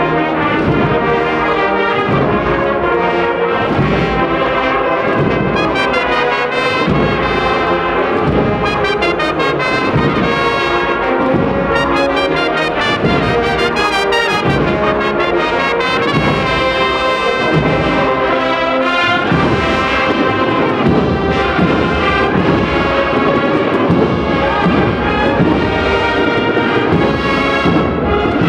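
Spanish Holy Week agrupación musical of cornets, trumpets, trombones and low brass playing a processional march, with a steady drum beat underneath.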